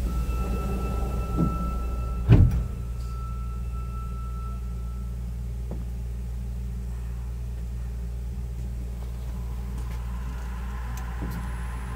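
Inside a Sapporo subway 9000-series car at a station stop. A held warning tone sounds, the sliding doors shut with a single loud thump a little over two seconds in, then the car's steady low hum carries on.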